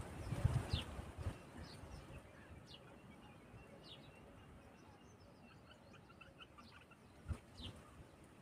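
Birds calling faintly: short high call notes repeated about once a second, with a few runs of quick chirps in the middle. Low rumble in the first second, from wind or mic handling.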